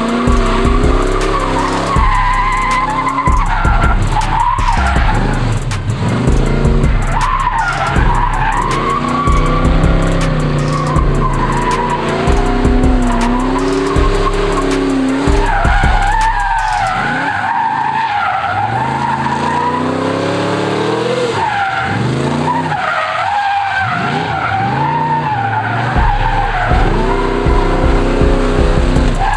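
Small pickup truck drifting in circles: its engine revs up and down over and over while the rear tyres squeal and skid in a smoky burnout.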